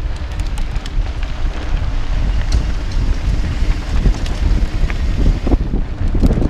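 Wind buffeting the microphone of a mountain bike's action camera as the bike rolls down a dirt trail, over a steady rumble of knobby tyres on the ground and scattered rattling clicks from the bike.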